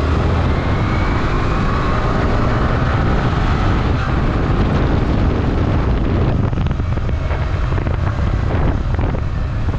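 Yamaha R15's single-cylinder engine pulling as the motorcycle speeds up, its note rising over the first couple of seconds, then running steadily at cruising speed, with wind noise on the microphone.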